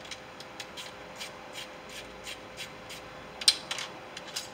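Handling noise from a 2005 Ford F-150's replacement window regulator: light, irregular clicks and rubbing of its metal rails, brackets and cable as it is turned over in the hands, with a sharper clack about three and a half seconds in.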